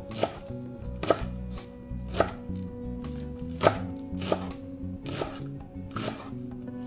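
Santoku knife chopping spring onions on a bamboo cutting board: about eight sharp knocks of the blade on the board, unevenly spaced at roughly one a second.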